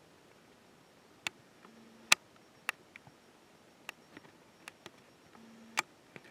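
Scattered sharp clicks and ticks at irregular intervals against a quiet background, about ten in all, the loudest about two seconds in; twice a brief low hum comes just before a click.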